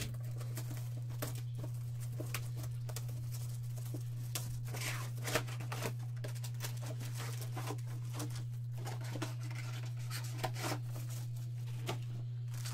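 Plastic shrink wrap being cut and peeled off a sealed trading card box: irregular crackling and short tearing sounds of the film, over a steady low electrical hum.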